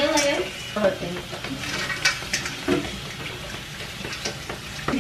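Kitchen tap running into a metal sink as raw chicken is rinsed under it, a steady hiss of water with a few brief knocks against the sink.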